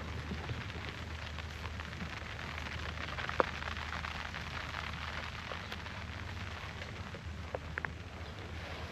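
Steady rain falling, an even hiss with scattered drops ticking on nearby surfaces; one sharper tick stands out about three and a half seconds in.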